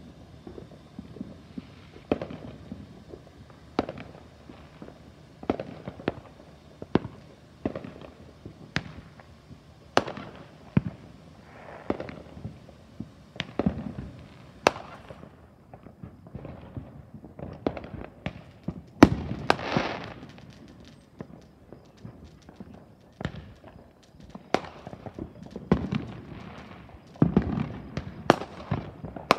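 Fireworks going off: a string of sharp bangs and pops at irregular intervals, with a denser, louder run of them about two-thirds of the way through.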